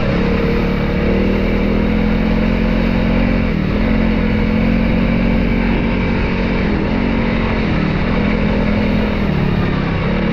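Trail motorcycle engine running under way, its note held steady and dipping briefly a few times as the throttle or gear changes, with heavy wind and road noise.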